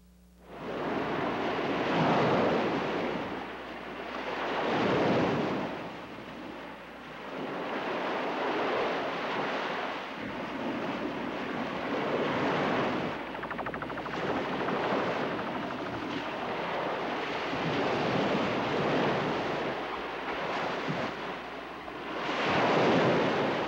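Ocean surf breaking and washing up a sandy beach, a steady rush that swells and fades with each wave every three to four seconds.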